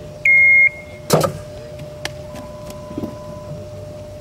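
A loud electronic beep, one steady high tone lasting about half a second. Shortly afterwards, about a second in, comes a single sharp smack.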